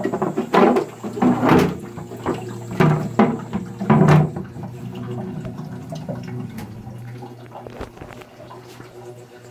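Toilet cistern fill valve droning as the tank refills after a flush: a steady hum with several louder bursts in the first four seconds, then gradually quieter. The droning is the noise fault of the fill valve itself.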